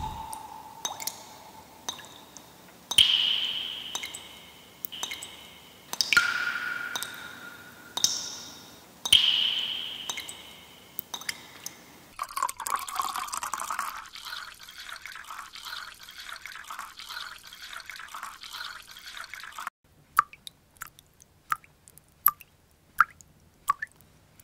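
Water drops falling into water, each plop with a short ringing pitch that fades away. Partway through there is a steady hiss of water for several seconds, then single small drips near the end, about two a second.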